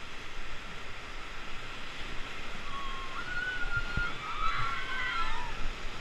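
White-water river rapids rushing and splashing around an inflatable raft as it runs through them. Rafters' high-pitched voices cry out from about halfway through, and there is a short dull thump about four seconds in.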